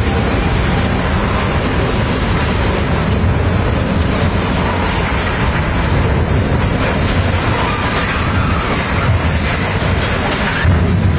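Ferry's steel hull grinding against and crushing the concrete port wall: a loud, continuous, deep scraping noise without a break.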